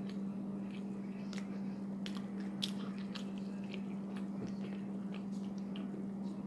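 A person chewing and biting food close to the microphone, with scattered small crunchy clicks. A steady low hum runs underneath.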